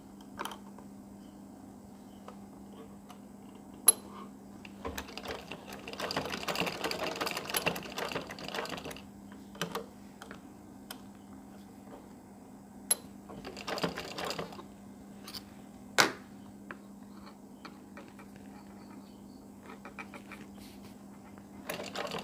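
Domestic sewing machine stitching in short runs: a fast run of stitches about six seconds in lasting some three seconds, and a shorter run a few seconds later. A few sharp clicks stand out between the runs, over a steady low hum.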